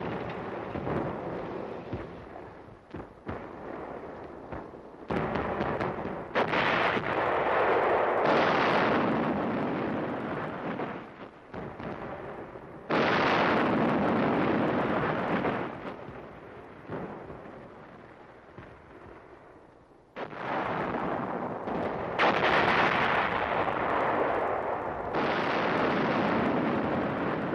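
Battle sounds of artillery and gunfire: several sudden heavy blasts, each trailing off in a long rumble over a few seconds before the next.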